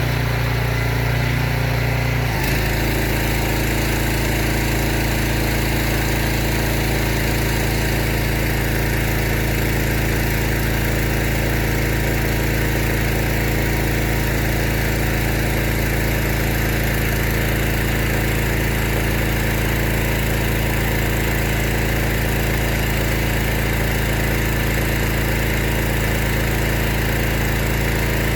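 Petrol engine of a Savi pressure washer running steadily. About two seconds in its note changes and a hiss comes in over it, then it runs on evenly.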